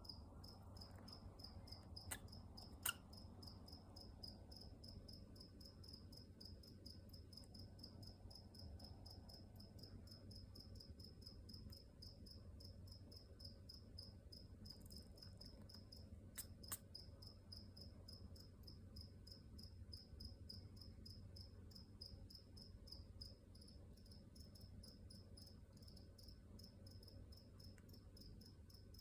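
Budgerigar chick sneezing: short, sharp little sneezes about two and three seconds in and once more around the middle. Behind them runs a steady, quick, high chirping.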